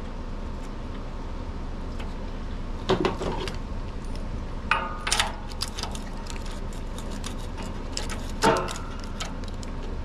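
Light metallic clinks and taps of a spark plug wrench and extension against a Honda-clone OHV engine as the spark plug is threaded back into the cylinder head, three louder clinks spread through it, over a steady low hum.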